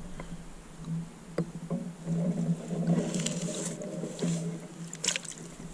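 Shallow water splashing and sloshing as a hand works in it around a hooked brown trout held at the shore, with short splashes about three seconds and five seconds in and a few small clicks. A faint low steady hum runs underneath.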